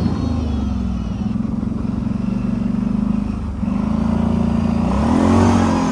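ATV engine running as the quad is ridden, its note easing off briefly near the start and again about three and a half seconds in, then rising and falling near the end.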